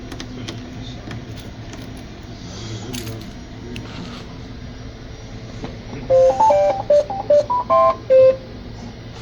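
3D printer beeping a short electronic tune, about ten quick notes stepping up and down in pitch, starting about six seconds in over a steady low hum.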